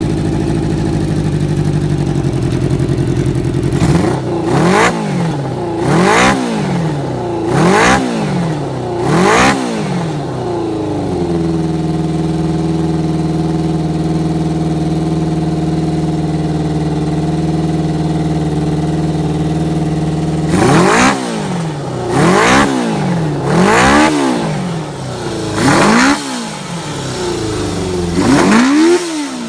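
Kawasaki Zephyr 400's air-cooled inline-four, fitted with pod air filters, idling and then revved in quick throttle blips: four sharp revs, a stretch of steady idle, then five more revs near the end.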